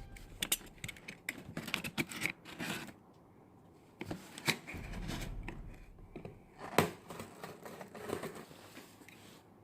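A knife slitting the packing tape and cardboard of a shipping box, with irregular scrapes, rustles and sharp taps as the box is handled and cut open.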